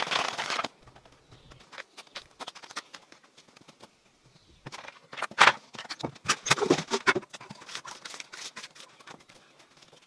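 Flat stones clattering as they are tipped out of a cloth sack onto the ground, followed by scattered clicks, knocks and scrapes as the stones are handled and set in mortar.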